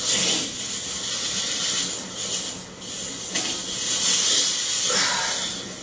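A loud, steady hiss, strongest in the upper range, that swells a few times.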